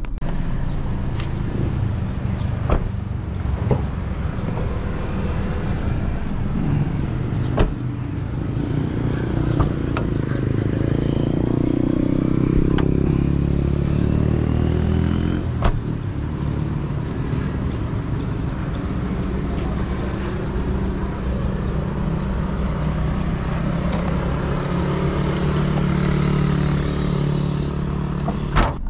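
Steady running of car engines and road traffic, swelling for a few seconds midway as a vehicle goes by. A few sharp knocks and clicks are heard on top.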